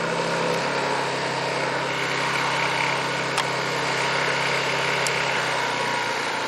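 Honda EU2200i inverter generator running steadily under about half load. Its engine note drops about half a second in as eco-throttle is switched on and the engine slows.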